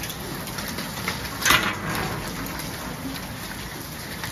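Steady hiss of rain, with a single sharp knock about a second and a half in.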